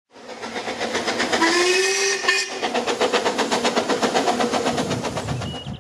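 Narrow-gauge steam locomotive working hard, its exhaust beats coming fast and even, about seven a second. A steam whistle sounds for about a second, starting about a second and a half in.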